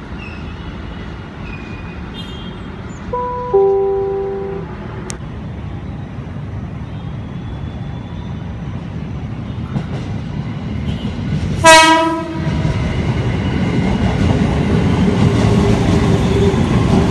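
JR 205 series electric commuter train approaching and running past: a two-note horn sounds about three seconds in, then a short, louder horn blast near the twelve-second mark, over a steady rumble of wheels and motors that grows louder as the cars go by.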